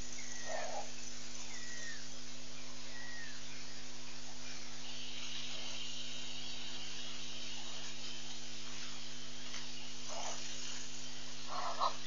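Outdoor wildlife-webcam ambience: a steady high insect buzz sets in about five seconds in, after a few short falling chirps, over a constant electrical hum and hiss from the webcam's audio line.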